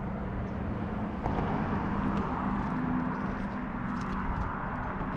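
Road traffic: a passing motor vehicle's low engine hum over a steady rush of road noise, growing a little louder about a second in and easing toward the end.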